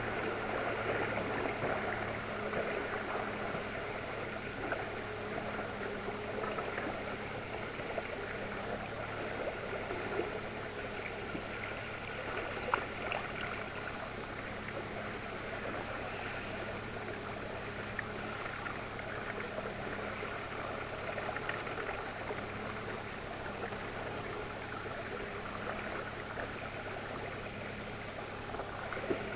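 Outboard motor running steadily at trolling speed with a low hum, under water rushing and splashing along the hull of a moving inflatable boat. A few faint knocks sound now and then.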